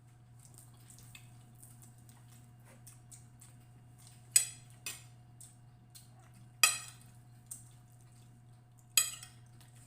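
Cutlery clinking and scraping against a plate during a meal: three sharp clinks with a short ring, about four, six and a half and nine seconds in, and a few lighter taps between them. A steady low hum runs underneath.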